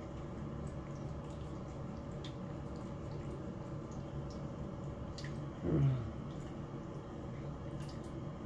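Cat licking and chewing salmon from a ceramic bowl: small wet smacking and clicking sounds over a steady low hum. About six seconds in there is a brief sound that falls in pitch, louder than the rest.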